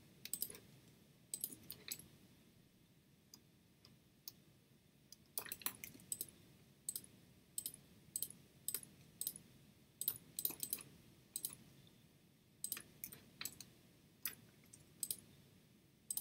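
Computer mouse clicking repeatedly and unevenly, a click or a quick pair of clicks every second or so, as lasso points are placed one by one.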